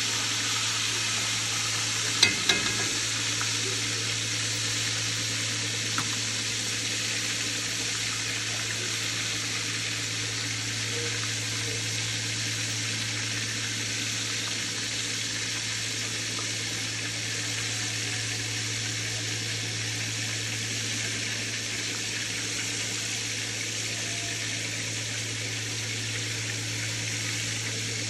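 Breaded venison steaks frying in hot oil in a cast-iron Dutch oven: a steady sizzle, with a steady low hum underneath. Two sharp clicks, the metal tongs knocking the pot, come about two seconds in, and a lighter one follows a few seconds later.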